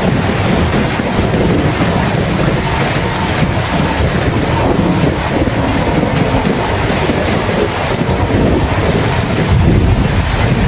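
Steady rain with a low rumble of thunder underneath, the rumble swelling slightly near the end.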